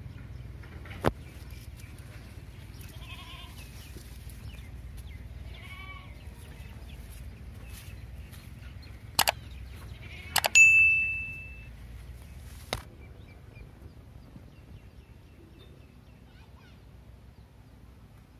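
Slingshot shooting with steel hex nuts: a few sharp snaps spaced seconds apart, and about ten seconds in a louder strike with a high metallic ring that lasts about a second. Faint animal calls twice in the background over a steady low rumble.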